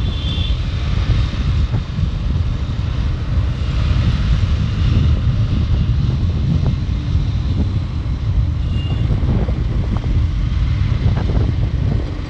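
Motorcycle on the move: wind rushing over the microphone over a steady low engine and road rumble. Two brief high tones sound, one at the start and one about nine seconds in.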